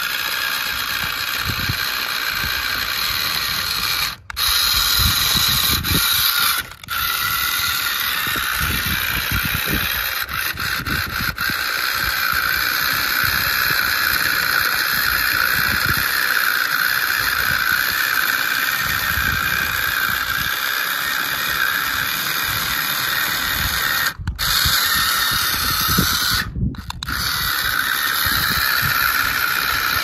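Electric gearbox motor of a remote-control Swaraj 855 FE model tractor whining steadily under load as the tractor towing a trailer strains in loose dirt and stones, its rear wheels digging in. The sound breaks off briefly four times.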